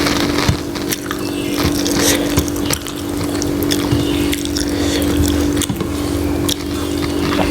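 Close-up wet eating sounds: rice and egg curry being mixed and chewed, with repeated short smacks and squelches, over a steady low electrical hum.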